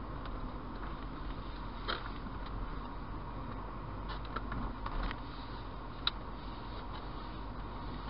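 Steady engine and road noise of a car being driven, heard from inside the cabin, with a few short clicks or rattles, the sharpest about six seconds in.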